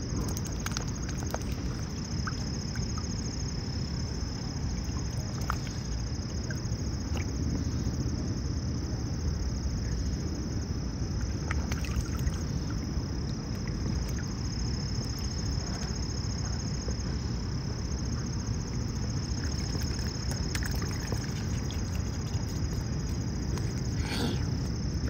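Juvenile mute swan dabbling its bill at the water surface, making small scattered splashes and clicks, over a steady outdoor rumble and a steady high-pitched buzz.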